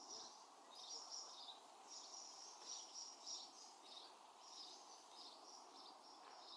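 Goldfinches twittering faintly in a near-continuous run of short, high chirps over a steady low background hum.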